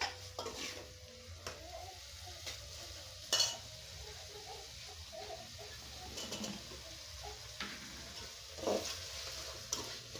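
A spoon stirring in a steaming aluminium cooking pot, clinking and scraping against the metal, with one louder knock about three seconds in, over a soft steady hiss from the hot pot. Just past the middle, chopped okra is tipped into the pot.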